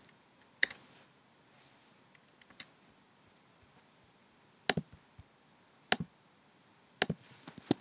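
Computer mouse and keyboard clicks: about eight short, sharp clicks at irregular intervals, a few in quick pairs, as a dimension value is typed in and confirmed.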